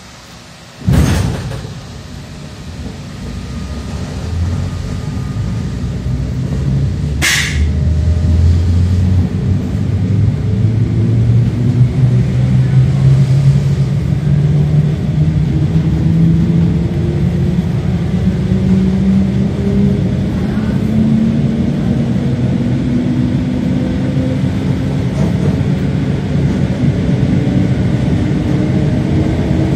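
EN57 electric multiple unit pulling away, heard from inside the carriage: a loud bang about a second in, then the traction motors' hum and the running rumble rise steadily in pitch and loudness as the train gathers speed. A sharp click comes about seven seconds in.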